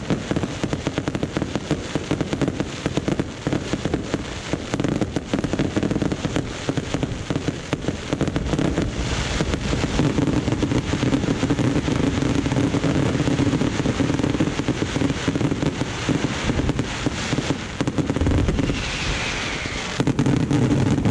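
Fireworks going off in a dense, continuous barrage of rapid bangs and crackling. A deeper boom comes about eighteen seconds in, and the barrage grows louder just before the end.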